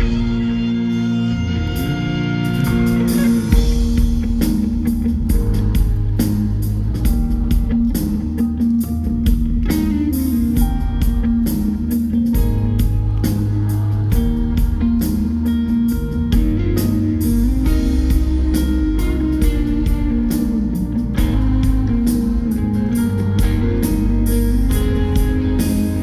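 Live band performance of a pop-rock song, with guitar and bass carrying the music and a steady drum beat coming in about three seconds in.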